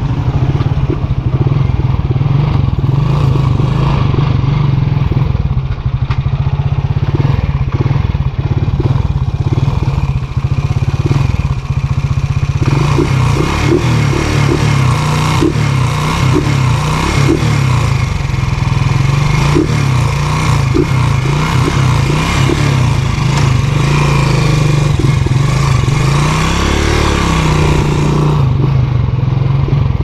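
Honda TMX 155's single-cylinder four-stroke engine running through an aftermarket Takasago muffler while the bike is ridden, its exhaust note rising and falling with the throttle. A rush of wind noise on the microphone grows from about halfway.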